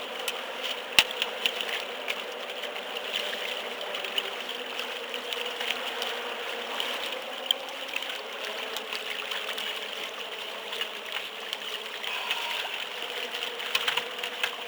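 Water sloshing and lapping around a small fishing boat, steady throughout, with scattered small clicks and ticks.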